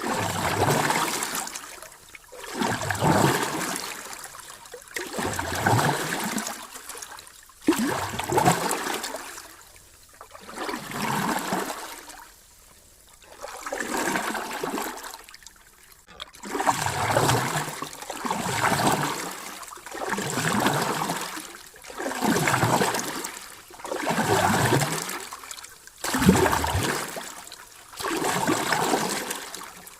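Sea waves washing in, a rush of water that swells and fades about every two seconds in a steady rhythm.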